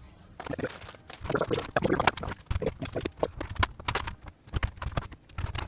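Plastic battery chargers and their cables being handled and set down on a tray: a quick, irregular run of light clicks, taps and knocks as they are sorted.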